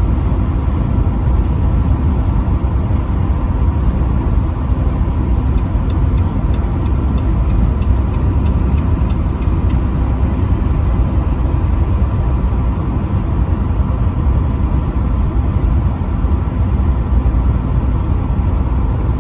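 Truck driving steadily: a constant low rumble of engine and road noise with no change in pace.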